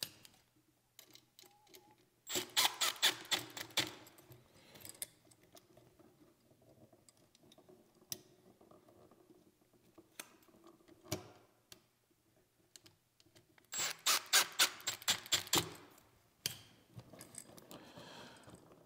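A drill with a No. 1 Robertson bit tightening the receptacle's brass terminal screws onto the hot conductors, heard as two runs of rapid clicking of about a second and a half each, several seconds apart, with light handling clicks between them.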